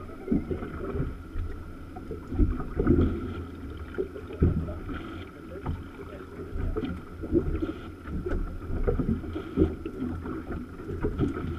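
Water slapping against the hull of a drifting small boat, with irregular low knocks and thuds as it rocks, over wind on the microphone.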